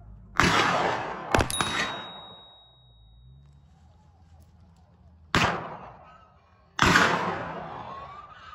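Four shotgun shots, each ringing out with a long fading echo: two about a second apart, then after a pause of a few seconds two more about a second and a half apart.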